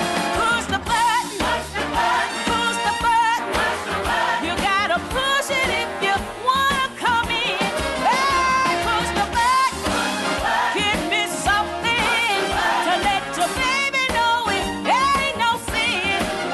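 Recorded pop-jazz song playing: a woman's voice sings sliding, ornamented runs over a band with a steady beat.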